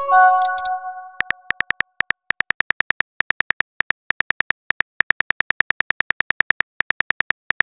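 A short chime that rings and fades over the first second, then rapid, evenly spaced keyboard-tap clicks from a texting app, about seven a second, as a message is typed out.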